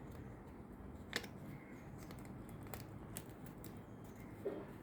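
Paper and sticky tape being handled: a few faint clicks and rustles, with one sharper click about a second in.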